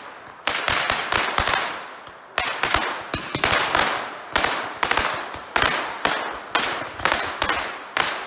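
Aerial fireworks firing in rapid succession: sharp bangs about twice a second, each with a fading tail.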